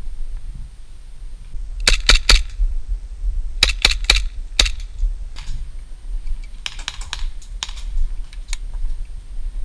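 Airsoft guns firing: sharp snapping clicks in quick groups of three about two seconds in and again near four seconds, then a looser cluster of clicks around seven seconds, over a steady low rumble.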